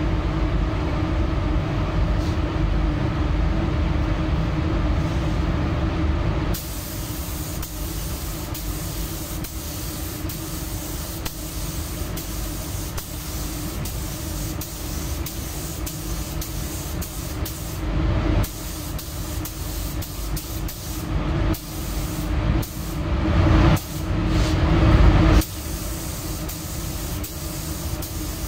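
Gravity-feed paint spray gun hissing as it sprays paint onto a car door, starting about six seconds in and breaking off briefly several times near the end. Before it starts, a steady low machine hum.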